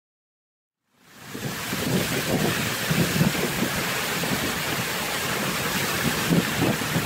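Car tyre running through standing water on a flooded road: a steady rushing hiss of spray with a fluctuating low rumble and wind buffeting the microphone. It fades in about a second in.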